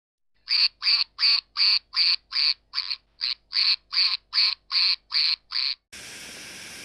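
A quick, even run of about fourteen duck quacks, a little under three a second. Near the end they stop and a steady, quieter hiss takes over.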